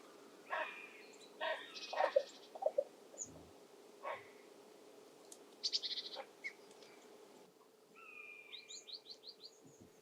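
Wild birds calling: several harsh separate calls in the first half, a fast chattering series about six seconds in, and a quick run of short high notes near the end.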